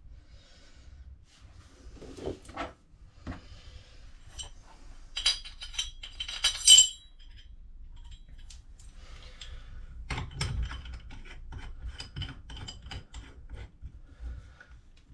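Metal parts and tools being handled: a series of clinks, rattles and rubbing, loudest in a cluster of sharp jangling clinks a few seconds in, then a run of lighter clinks and ticks.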